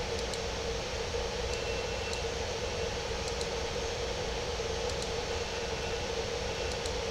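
Steady background hiss with a constant low hum, like a computer fan or room noise, and a few faint ticks scattered through it.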